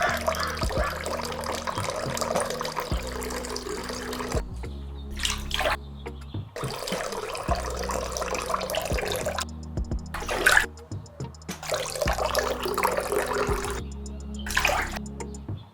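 Water gushing and splashing in repeated spurts of a few seconds each, as from a miniature hand water pump being worked, over steady background music.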